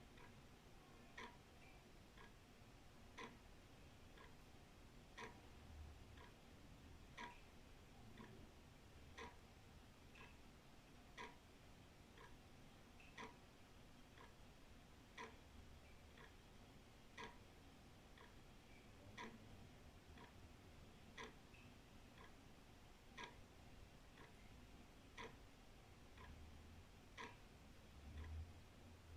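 Old wall clock ticking steadily, about one tick a second, alternating stronger and weaker strokes in a tick-tock rhythm.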